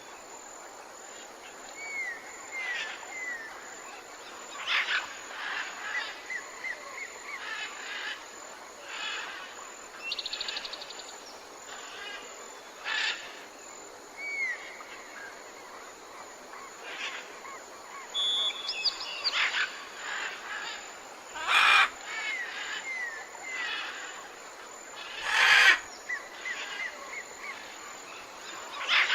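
Several wild birds calling over one another in a morning chorus, with repeated short slurred whistles and brief trills. Two louder, harsher calls stand out in the last third.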